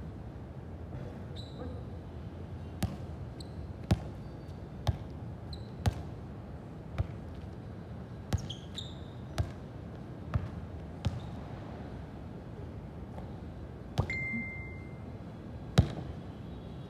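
A series of sharp thuds, roughly one a second with a pause of a few seconds after the middle, over steady background noise. A few short high squeaks fall between the early thuds, and a brief high tone follows one thud near the end. The last thud is the loudest.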